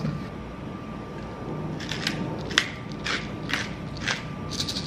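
Wooden salad servers tossing dressed romaine lettuce in a stainless steel bowl: a string of short, crisp rustles and scrapes, about two a second, starting about two seconds in.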